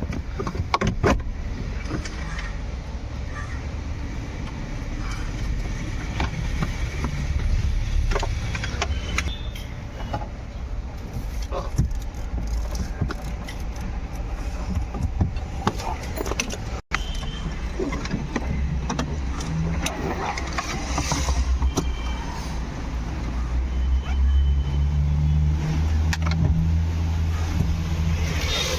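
Metal tools and nuts and bolts clinking and knocking as a car's steering column is unbolted, with scattered sharp clicks over a steady low hum that grows stronger in the last third.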